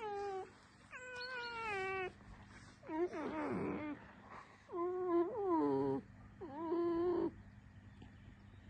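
Red fox lying down and giving a run of whining, creaking squeals, about five calls each up to a second long, the one about three seconds in rougher and growlier.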